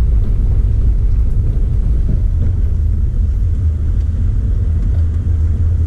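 Truck driving along a gravel road, heard from inside the cab: a steady low rumble of engine and tyres.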